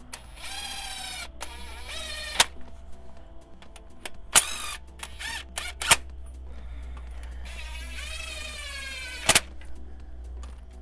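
Cordless power wrench spinning down the hold-down bolts of a counterbore cutting tool in five short whining runs, the pitch sagging as each bolt pulls tight, with a sharp clack at the end of several runs.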